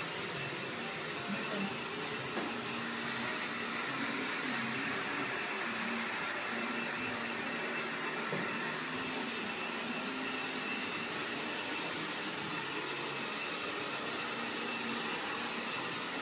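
Steady whirring of an electric motor blowing air, with a faint high whine.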